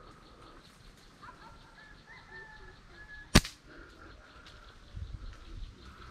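A bird gives short gliding whistled calls for about two seconds, then comes one sharp, loud snap of a rubber slingshot being shot, a little over three seconds in.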